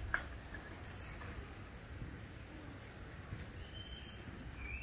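A child's bicycle rolling over concrete: faint tyre noise over a low steady rumble. There is a sharp click at the start and two short high chirps near the end.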